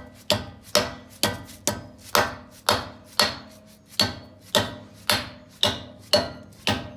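A hammer tapping the metal cap onto the front hub over the axle nut, a dozen or so blows at about two a second, each with a short metallic ring.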